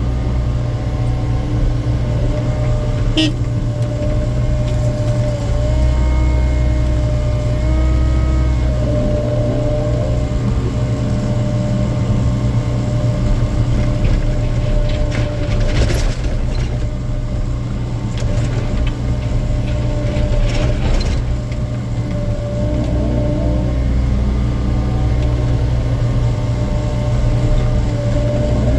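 Hydraulic excavator working: the diesel engine runs steadily under load, with the hydraulic whine shifting as the bucket scoops and loads broken concrete waste. A few sharp knocks come through, one about three seconds in and two past the middle.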